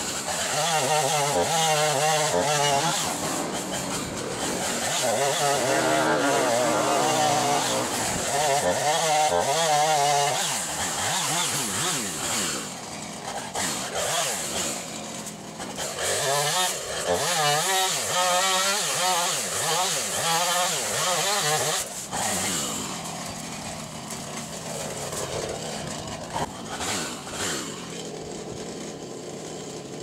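Husqvarna chainsaw running and cutting limbs, its revs rising and falling over and over. It drops to a quieter level a little over two-thirds of the way through.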